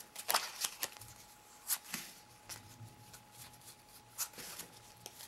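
Playing cards being sorted by suit and laid down into piles on a card table: irregular soft flicks, slides and light slaps of card stock, with several sharper clicks.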